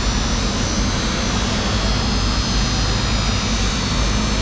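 Steady machinery drone, a low hum with a constant hiss over it.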